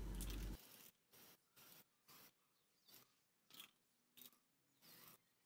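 Aerosol spray-paint can giving a string of short, faint hisses, about eight brief bursts with near silence between. A steady background noise cuts off about half a second in.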